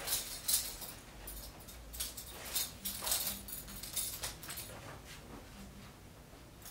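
Belt being unbuckled and pulled out through jeans belt loops: light clinks of the metal buckle and rustles of the strap sliding through the fabric, in a scatter of short faint clicks.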